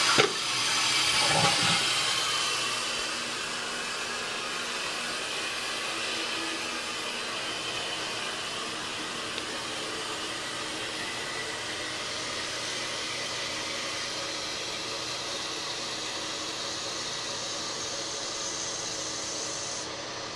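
Eljer Savoy toilet finishing its flush in the first couple of seconds, then the tank's fill valve hissing steadily as water runs back into the tank. The hiss thins slightly near the end.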